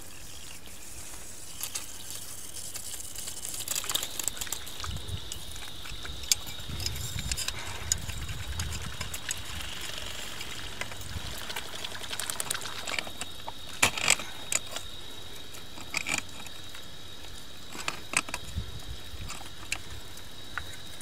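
Tongue-and-groove pliers clicking and scraping against the brass fittings of an irrigation flow meter as they are tightened to stop a leak, with several sharp metallic clicks, the loudest about two-thirds of the way through. Underneath runs a faint steady hiss of water under pressure in the line.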